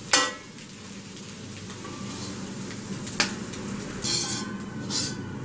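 Scrambled eggs being scraped out of a hot pan with a spatula over a steady low sizzle. There is a sharp clink right at the start, another about three seconds in, and two short scrapes near the end.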